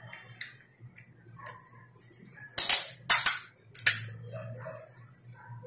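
Crisp fried puri shells cracking as they are poked open and handled. There are three sharp, crunchy cracks between about two and a half and four seconds in, with small clicks and crackles around them.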